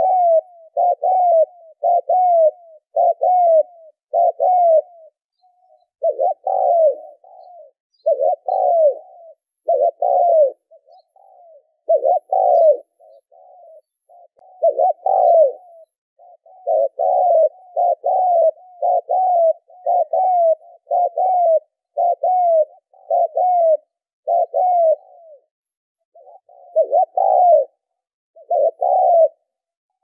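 Spotted dove cooing: a long run of low coos, about two a second, each note dipping in pitch, broken by a few short pauses.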